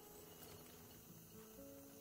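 Faint background music with slow, held notes.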